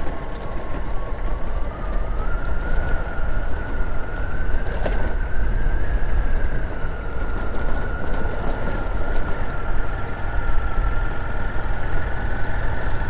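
Motorcycle engine running at a steady cruise on a dirt road, with heavy wind rumble on the microphone. A steady whine rides over it and rises a little about two seconds in.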